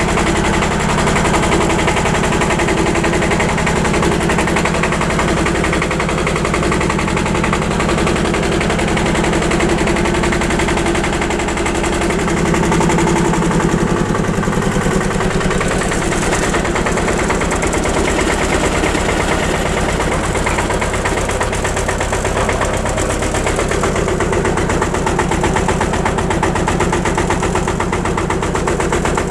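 Small vintage diesel tractor engine running under way with a fast, even knocking beat. The engine note rises briefly about halfway through.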